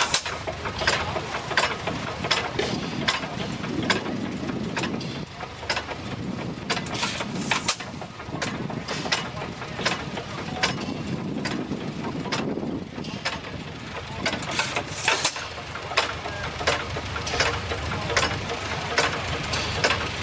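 2 horsepower New Holland hit-and-miss engine running: a regular click about one and a half times a second as the flywheels turn, with louder firing bangs a couple of times.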